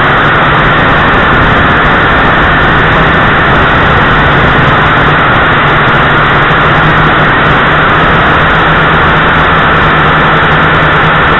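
JRC H8C quadcopter's electric motors and propellers running steadily in flight, heard loud and close through its onboard camera's microphone: a steady high whine over a rushing hiss with a low hum beneath.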